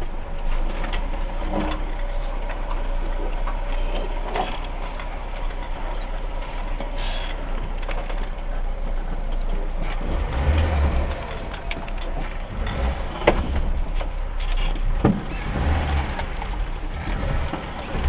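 A vehicle driving, a steady rumble with scattered knocks and rattles and a few heavier low thuds from about ten seconds in.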